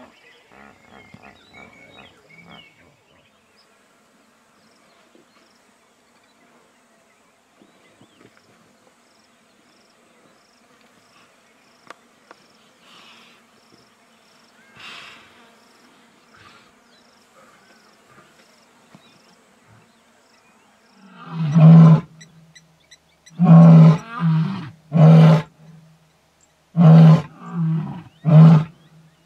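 Lion roaring. After a long quiet stretch with faint, regular insect chirping, a bout of deep, loud roars begins about 21 seconds in: some seven in quick succession, each shorter than the last.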